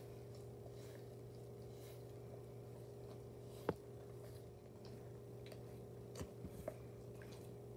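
German Shepherd puppy licking a leather ottoman: faint wet licking and smacking, with a sharp click about halfway through and a few more near the end, over a steady low hum.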